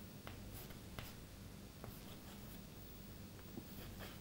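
Chalk writing on a chalkboard: faint scratching with a few light taps as the letters are formed, over a low steady hum.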